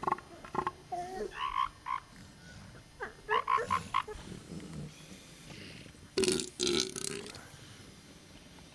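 Northern elephant seals calling in a beach colony: a series of short croaking and grunting calls, the loudest two coming close together about six seconds in.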